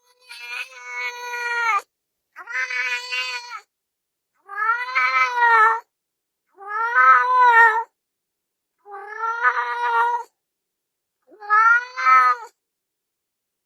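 Domestic cat meowing six times in a row, each meow drawn out for about a second and rising then falling in pitch.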